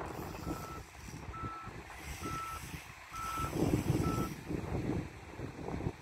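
Reversing alarm on heavy earthmoving equipment, beeping about once a second, five short beeps of one steady pitch that stop about four seconds in. Under it is a low rumble of wind on the microphone.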